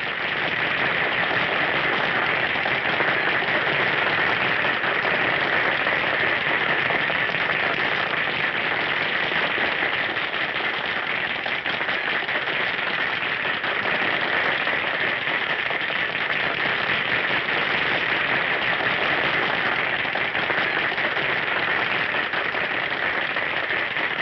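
Audience applauding, a long steady wash of clapping on a 1930s film soundtrack.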